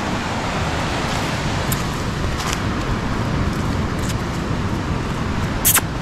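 Steady rush of surf breaking on a sandy beach, mixed with wind noise, with a sharp click near the end.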